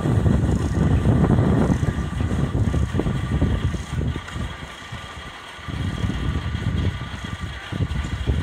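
Small narrow-gauge steam locomotive pulling away with a carriage: a rough low rumble of the engine working and the wheels on the rails, which drops for about a second midway and then comes back.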